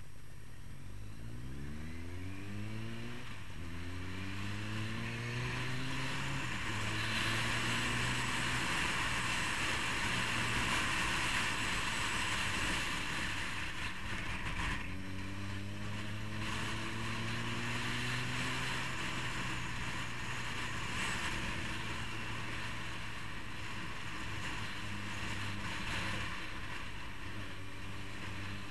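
Motorcycle engine accelerating away through the gears, its pitch climbing and then dropping at each upshift, about three seconds in and again near seven seconds, then cruising with wind rushing over the microphone. About halfway through the engine eases off and pulls through the gears again before settling to a steady cruise.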